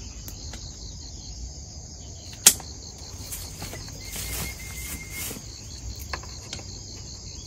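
Insects chirring steadily with a high, pulsing buzz. About two and a half seconds in there is one sharp snap, the pruning shears cutting through a gourd's stem.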